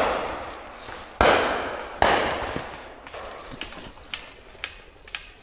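Shotguns firing at driven pheasants, single shots cracking out with a long fading echo, the loudest about a second in, followed by several fainter, more distant shots.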